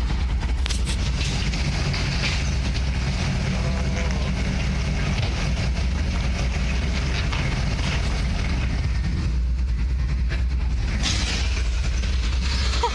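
A heavy scrapyard machine tearing apart a car body, with irregular metal crunching and clanking over a steady low idling engine hum.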